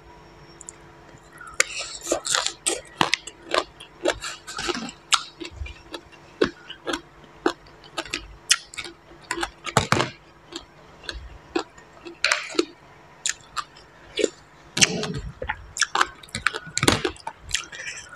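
Close-miked crunchy chewing of green papaya salad and fresh greens, with many irregular sharp crunches starting about a second and a half in.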